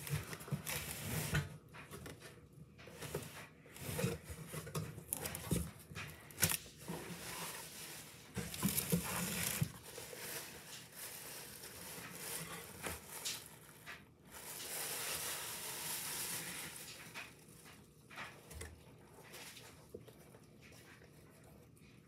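Cardboard box and packaging being handled and opened by hand: flaps bending and scraping, irregular knocks and rustling, with a longer stretch of rustling about two-thirds through as the mask is unwrapped and handled.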